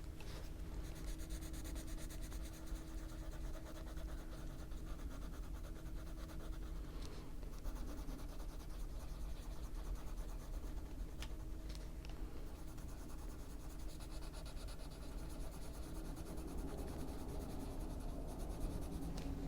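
Prismacolor colored pencil scratching and rubbing steadily on a colouring book page as colours are blended, with a faint steady hum underneath.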